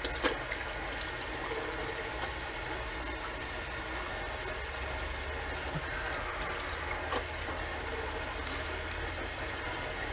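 Cold water running steadily from a bathroom tap into the sink while the face is rinsed by hand, with a couple of light clicks and a low steady hum underneath.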